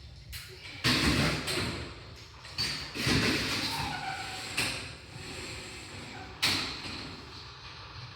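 A series of sudden thuds and knocks, about five strong ones spread irregularly, with rustling noise between them.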